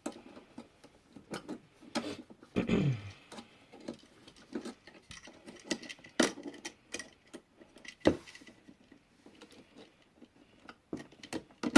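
Needle-nose pliers working a copper ground wire: irregular small metallic clicks and taps, with one sharper click about eight seconds in.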